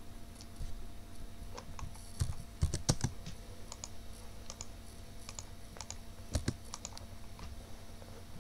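Computer keyboard keystrokes and mouse clicks, a scatter of separate taps, with a louder cluster of several about a third of the way in and another loud tap later.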